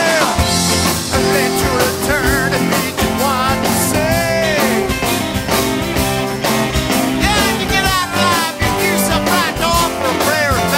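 Rock and roll band playing an instrumental passage of a song, with steady drums, bass and a lead line that bends and wavers in pitch.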